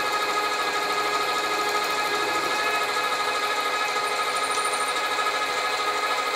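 Sieg bench lathe running at a steady speed, its motor giving a whine of several steady tones, while a twist drill in the tailstock chuck bores into a spinning brass bearing block.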